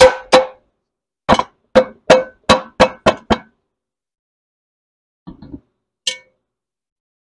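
Cast iron Dutch oven being rapped and knocked, ringing metal-on-metal clanks, about nine in quick succession, then a short rattle and one last clank about six seconds in. The knocking is done to free a cake stuck inside the pan.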